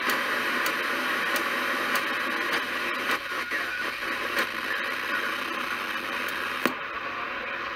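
President Zachary T CB radio hissing with open-squelch static through its speaker, with a short click at each step as the channel knob is turned down to channel 19. Near the end a sharper click comes as the FM button is pressed, and the hiss turns duller.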